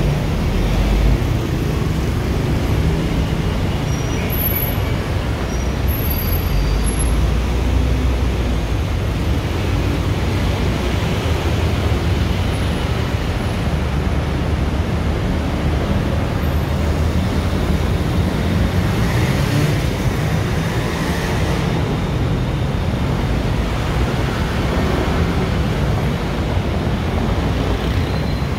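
Heavy city road traffic: a steady rumble of passing buses, cars and other engines.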